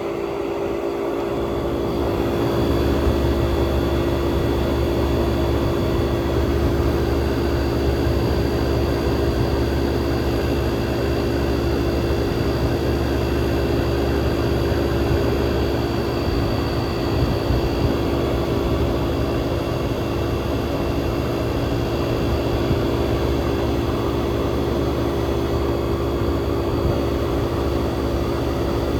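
1967 Chrysler Airtemp Imperial air conditioner running steadily: a constant compressor hum under the rush of its fans, growing a little louder in the first couple of seconds.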